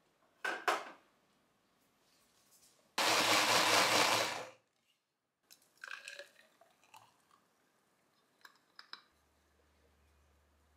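Small blender running for about a second and a half, blending tomato, blueberry and celery into juice, then stopping suddenly. Softer knocks and clinks follow as the juice is poured into a glass.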